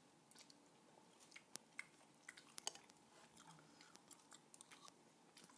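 Faint chewing and crunching of crunchy salted-egg chicken wings, a scatter of small sharp crackles and clicks, thickest about two to three seconds in.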